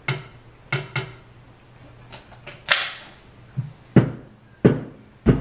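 Hands tapping out a beat on a hard kitchen surface: about ten sharp knocks and clicks in an uneven rhythm, the loudest deep thumps about four seconds in and near the end.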